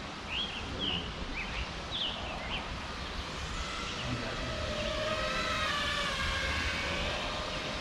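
Faint whine of an FPV racing quadcopter's motors and propellers, a stack of tones wavering up and down together with the throttle from about halfway through. A few short bird chirps come in the first couple of seconds.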